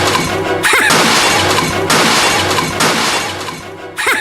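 Crashing and shattering sound effects, with fresh crashes about two and three seconds in, laid over background music and fading near the end.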